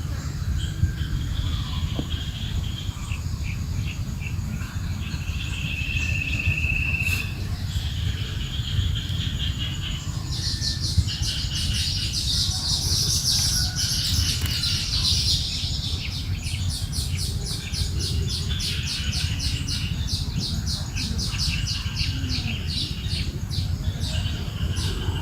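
Several forest birds singing and calling over one another with chirps and whistled notes. From about ten seconds in, the chorus grows denser, and a rapid ticking trill runs through the second half. A steady low rumble lies underneath.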